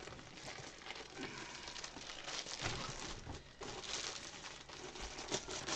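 Faint crinkling and rustling of a clear plastic bag as a rolled diamond painting canvas is slid out of it.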